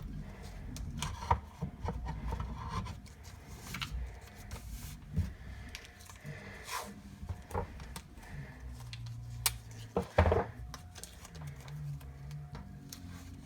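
Pencil scratching and rubbing on a wooden board with irregular handling noises and scattered sharp clicks and knocks, the loudest about ten seconds in, as a stencil design is indented into the wood.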